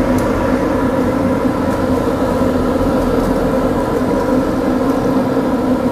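A large batch of tofu deep-frying in hot oil, sizzling steadily under a constant mechanical hum.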